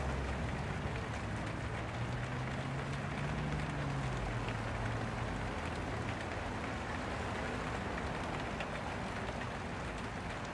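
Steady rushing background noise. A low hum rises slightly in pitch and fades out in the first half.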